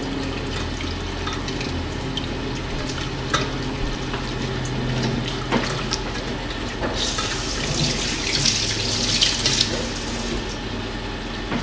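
Silicone-coated wire whisk stirring milk, water and butter in a stainless steel saucepan as it heats towards the boil: a steady liquid swishing over a low hum, with a couple of sharp clicks of the whisk on the pan. A louder hiss comes in about seven seconds in and lasts a few seconds.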